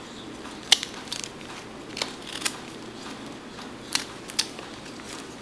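Whittling knife cutting into a wooden carving: short sharp clicks and snaps as the blade bites and chips break off, about six in five seconds, the loudest a little under a second in.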